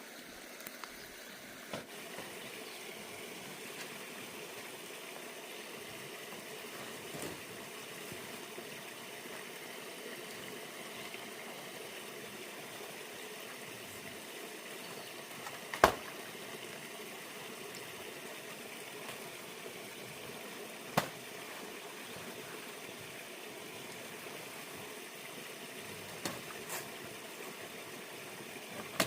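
Steady hiss of food cooking over heat, broken by a few sharp knocks: the loudest about halfway through, another a few seconds later.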